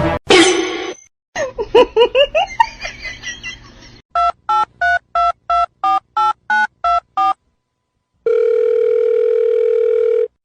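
A burst of short squeaky chirps with rising pitch, then a telephone keypad being dialed: about a dozen quick two-tone beeps, followed by a steady telephone tone held for about two seconds.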